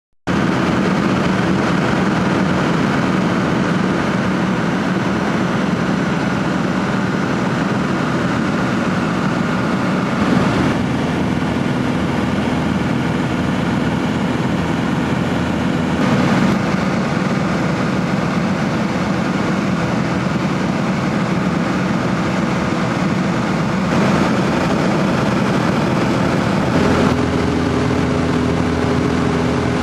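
Robin HR200 light aircraft's piston engine and propeller running steadily in cruise, heard from inside the cockpit. The tone shifts slightly a few times, most clearly near the end.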